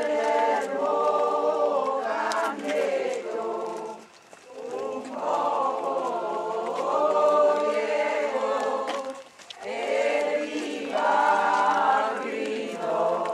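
A group of voices singing a hymn together in long sung lines, with short breaks for breath about four and nine seconds in.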